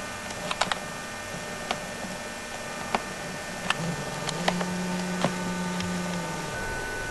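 About a dozen sharp, irregular clicks over a steady hum, with a low steady tone from about four to six seconds in.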